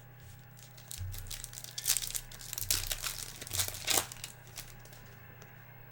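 Trading-card pack wrapper crinkling and tearing as it is opened by hand, in several crackly bursts between about one and four seconds in.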